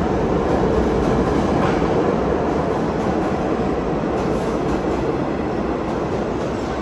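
A train of vintage New York City subway cars running past an underground station platform: a steady, loud rumble and rush of steel wheels on rail, with no sharp clacks or squeals standing out.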